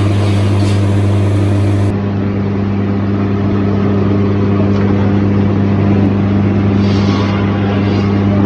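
Sawmill machinery running with a steady, loud mechanical hum. A short hiss comes about seven seconds in.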